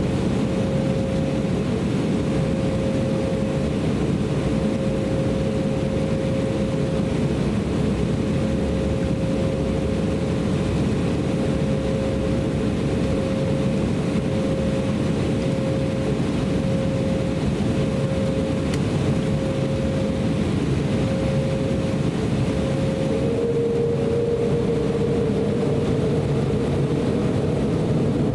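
Cabin sound of an Embraer E190's GE CF34-10E turbofan engines running at low thrust as the jet taxis onto the runway: a steady rumble with a held whine. About five seconds before the end, the whine's pitch shifts, and right at the end it begins to rise.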